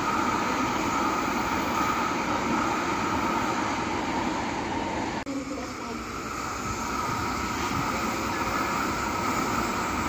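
Shinkansen bullet train running past on an elevated track: a steady rushing rolling noise. The sound drops out for an instant about five seconds in.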